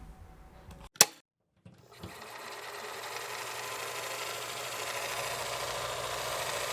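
A sharp click about a second in, a brief silence, then a tattoo machine buzzing steadily.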